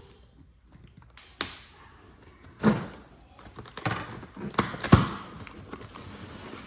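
Cardboard mystery box being opened and handled by hand: a series of taps and knocks with rustling between them, the loudest knock about five seconds in.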